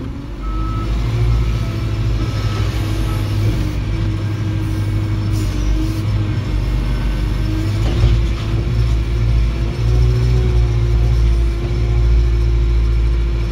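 Diesel engine of a construction machine running steadily, heard from inside its cab, with a steady whine running over the engine and a single clunk about eight seconds in.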